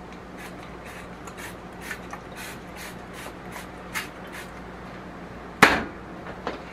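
Plastic spice shaker shaken over raw ribs, the seasoning rattling out in a series of quick shakes, with one sharper, louder knock about five and a half seconds in. A faint steady hum lies underneath.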